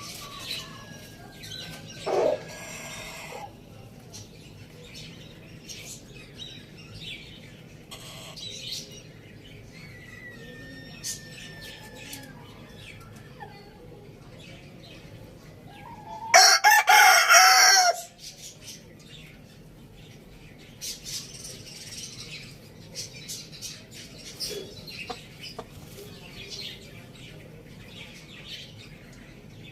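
A rooster crows once, loudly, for about a second and a half a little past the middle. Around it there are scattered clucks and small bird chirps, with a shorter loud call near the start.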